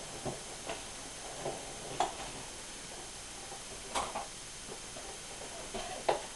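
Handling noise: a few light clicks and taps, irregularly spaced, over a quiet steady hiss.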